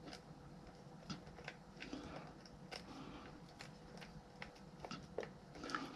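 Faint, irregular clicks and taps of hands handling wires and small parts, with a low steady hum underneath.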